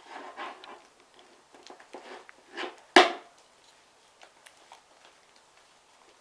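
Fluffy slime made with shaving gel being mixed and kneaded by hand: irregular sticky squelches and crackles, with one sharp, louder snap about three seconds in.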